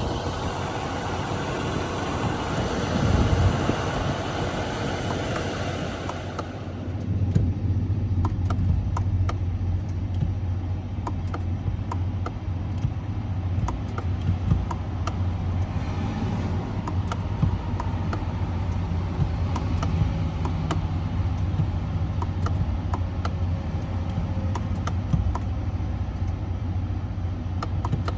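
Motor vehicle noise: a broad rush for the first six seconds, cutting off abruptly, then a steady low engine hum with faint clicks.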